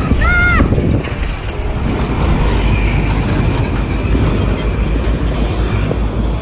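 Heavy road vehicle, a large truck or bus, running loud and steady as it passes close by, with a deep engine rumble. A brief tone that rises and falls is heard in the first half second.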